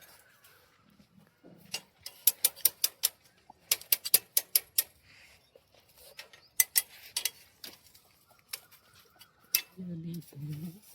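Hammer striking steel in quick runs of sharp metallic taps, several bursts of a handful of blows each.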